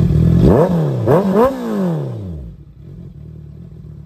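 Honda CBR650's inline-four engine, fitted with an IXIL aftermarket silencer, blipped three times in quick succession from idle, its pitch rising and falling with each blip. The engine note then drops away about two and a half seconds in.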